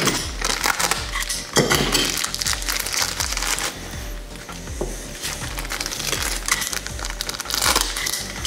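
Small plastic parts bag crinkling and crackling as it is handled and opened, over background music with a steady bass line.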